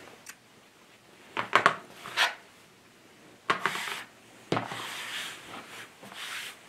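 Cotton fabric rustling and sliding over a cutting mat, with a few light clicks and a sharp clack about four and a half seconds in as a pair of shears is laid down on the mat.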